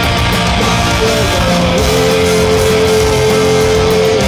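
Pop-punk band playing live through a concert PA: distorted electric guitars, bass and drums at full volume, with one long held note from a little under two seconds in until just before the end.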